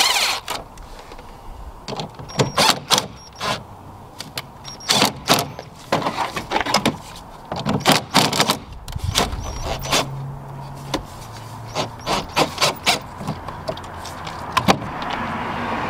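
Cordless driver whirring in short runs as it backs out the 8 mm screws on the air intake tube's hose clamps, amid many sharp clicks and knocks of the tool and the plastic intake tube being handled.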